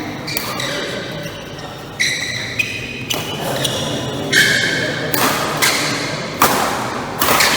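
Badminton rally: rackets striking the shuttlecock back and forth, about eight sharp hits with a brief ringing ping from the strings, at irregular intervals and echoing in the hall.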